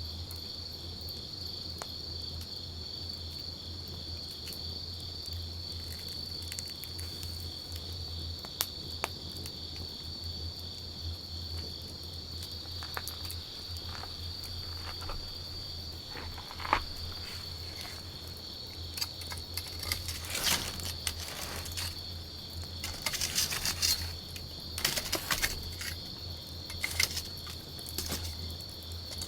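Wood campfire crackling, with sharp pops and snaps scattered throughout and coming more often in the second half. Over it runs a steady high insect chirring and a low steady hum.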